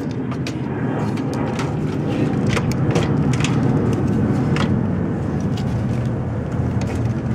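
A steady low rumble with scattered light clicks and knocks, the clicks fitting hands working on a metal PC case.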